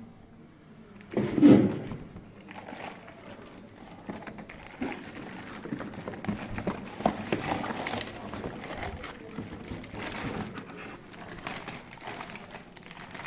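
Plastic packaging rustling and crinkling, with small clicks and knocks as plastic mixer jars and parts are handled. A louder, short low knock comes about a second and a half in.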